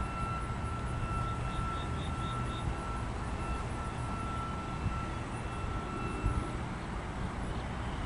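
Freight cars rolling slowly over yard track: a steady low rumble with a few short knocks, and a thin steady high squeal that fades out about six and a half seconds in.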